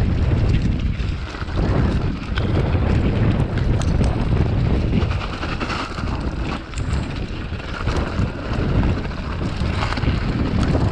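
Mountain bike descending a rocky dirt trail at speed: wind buffeting the bike-mounted camera's microphone over a steady low rumble of tyres on stony ground, with the bike rattling and knocking over bumps.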